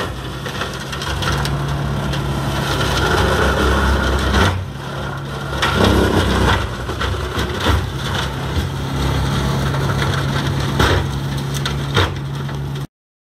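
Tractor engine running steadily under load with a Maschio Tigre 230 flail mulcher shredding branches and stems, with sharp cracks of wood being crushed every second or two. The sound cuts off abruptly near the end.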